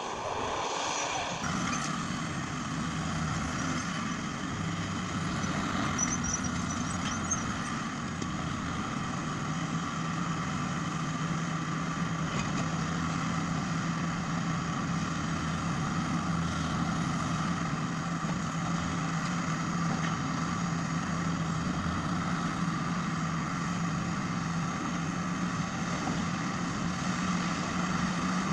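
A heavy diesel engine of a forestry machine running steadily, a constant low hum with little change in pitch or level.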